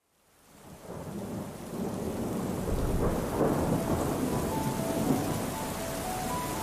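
Recorded rain-and-thunderstorm ambience fading in from silence: steady rain with a low rumble of thunder swelling about three seconds in. Soft single notes of a simple melody begin over it a little later.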